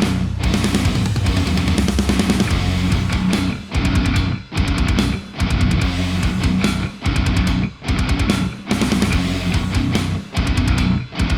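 Background heavy-metal music with distorted electric guitar and a driving beat, broken by short stops.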